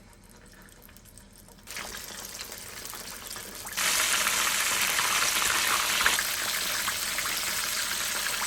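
Battered chicken pieces going into hot oil at just over 300°F for the second fry of a double fry: a sizzle starts about two seconds in, jumps much louder about four seconds in, and carries on as a steady loud sizzle.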